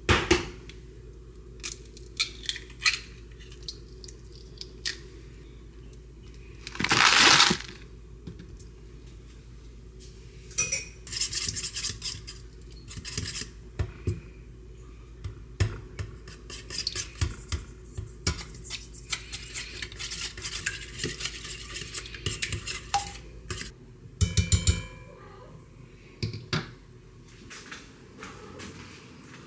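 An egg cracked sharply on the rim of a stainless steel bowl, then a whisk beating raw eggs in the steel bowl with rapid clinking and scraping against the metal for over ten seconds. Near the end there is a quick run of sharp knocks.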